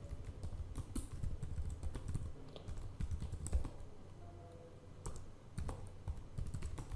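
Computer keyboard typing: irregular key clicks as a web address is typed, with a short lull about two-thirds of the way through.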